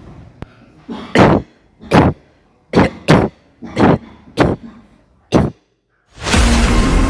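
A person coughing in a fit of about seven short, harsh coughs at uneven intervals, a pair coming close together in the middle. Music comes in loudly near the end.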